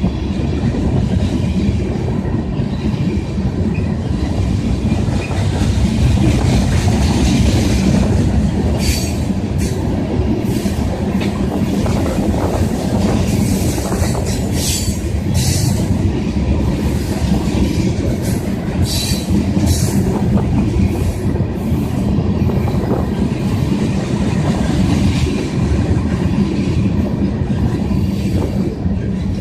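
Ethanol tank cars of a freight train rolling past with a steady rumble of wheels on rail and clicking over rail joints. From about eight seconds in, short high-pitched wheel squeals come again and again. Heavy wind buffets the microphone.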